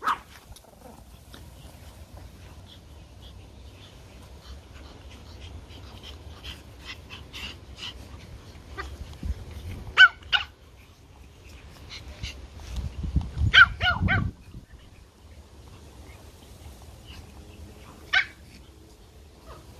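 Small Pomeranian puppies at play giving a handful of sharp, high-pitched yaps, the loudest about halfway through and again a few seconds later.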